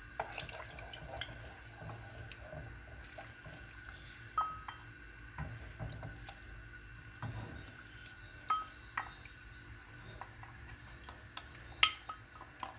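Custard-powder mixture poured and dripping into warm milk in a non-stick saucepan while a wooden spoon stirs it, with scattered light taps of the spoon against the pan and bowl and a sharper knock near the end.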